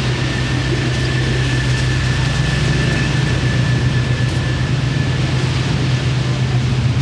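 Steady low motor drone with a faint high whine held over it that fades out near the end.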